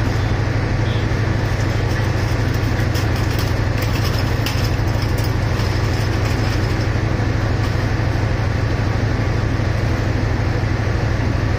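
Diesel locomotive of a stationary passenger train idling: a steady, unchanging low engine rumble.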